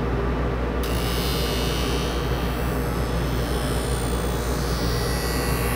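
Skate-sharpening machine running with a steady motor hum. About a second in, a bright, steady grinding hiss starts as the steel skate blade is drawn along the grinding wheel in a sharpening pass.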